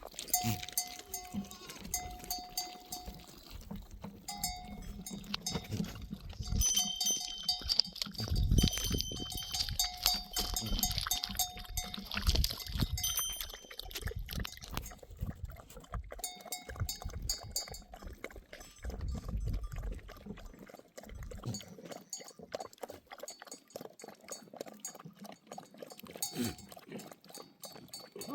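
Bells on a flock of grazing sheep, clanking and ringing on and off as the animals move, with scattered small knocks.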